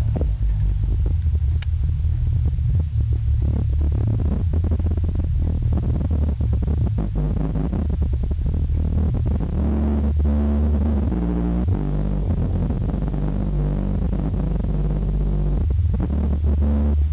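Music with heavy bass played loud through Sony Xplod subwoofers driven by a 1000 W amplifier in a car's trunk box; the deep bass dominates the sound throughout.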